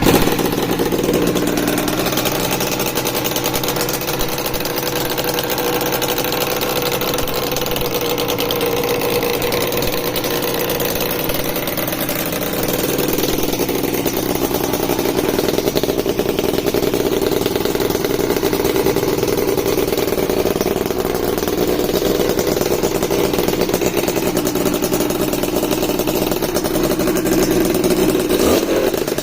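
Suzuki-based Max 200 twin-cylinder two-stroke engine running steadily at a fast idle on its first run; its note drops a little about twelve seconds in.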